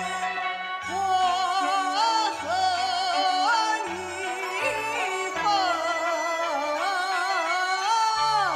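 A line of Liuzi opera sung by one woman's voice in a wavering, ornamented melody over traditional Chinese instrumental accompaniment; the voice enters about a second in.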